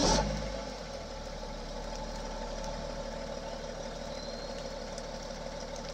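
BMW X5's M57 straight-six diesel engine just after start-up, heard at the tailpipe: loud at first, then settling within about a second into a steady idle.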